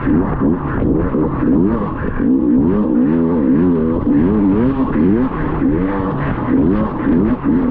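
Dirt bike engine revving up and dropping off again and again, about once a second, as the rider works the throttle and gears around the course.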